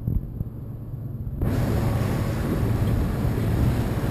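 A motorboat's engine runs with a steady low rumble. About a second and a half in, a rushing noise of wind and water suddenly comes up over it and stays.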